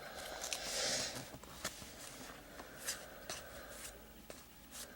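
Soft rustling and light ticks of trading cards being handled and slid against one another, with a brief rustle about a second in.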